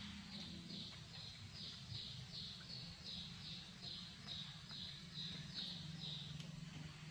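High-pitched chirps repeating evenly, about two or three a second, each dropping slightly in pitch, stopping near the end, over a steady low hum.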